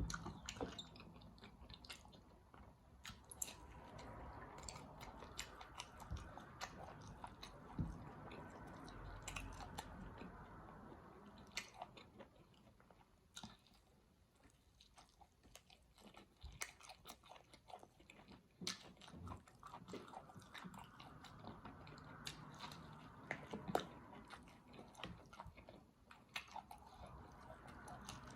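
Close-up mouth sounds of a person eating: biting and chewing with frequent short crunchy clicks, quieter for a few seconds midway.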